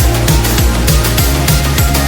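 Loud electronic background music with a heavy bass line and a fast, steady drum beat.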